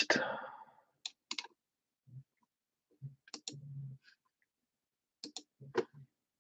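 Faint, scattered clicks of a computer mouse and keyboard while copying and pasting in a spreadsheet, several of them coming in pairs.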